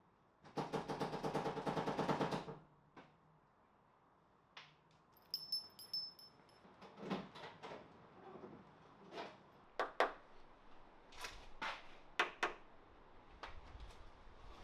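A rapid run of mechanical clicks lasting about two seconds, then scattered single knocks and clicks, with a brief high beep in the middle.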